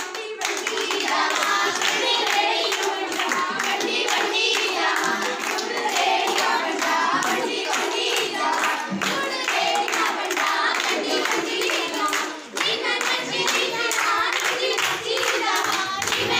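A group of girls singing a Punjabi folk song together while clapping their hands in a steady rhythm, in the style of giddha.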